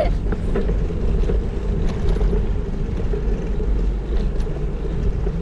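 Steady low rumble of wind buffeting a bike-mounted action camera's microphone during cycling, with a few faint clicks.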